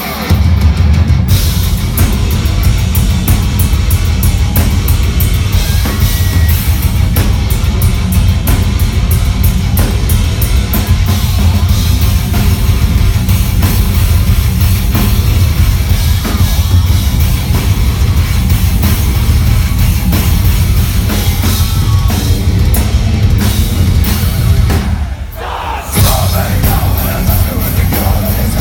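Heavy metal band playing live at full volume: pounding drums and heavy low-end guitar and bass, with a brief drop-out about a second long near the end before the band crashes back in.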